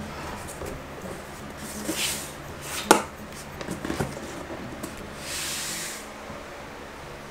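Locking luxury vinyl floor tiles being pressed and snapped into place by hand: a sharp click about three seconds in, lighter knocks around it, and a short scraping hiss of tile sliding on the floor about five seconds in.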